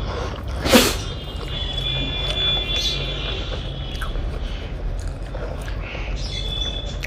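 Close-miked eating sounds, with one short, sharp noise about a second in and faint high whistling tones for a couple of seconds after it.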